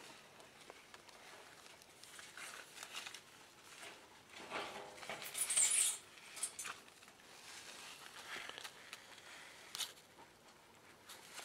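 Leaves rustling and scraping close to the microphone in irregular bursts. The loudest is a crackly rustle about halfway through, with lighter scrapes after it.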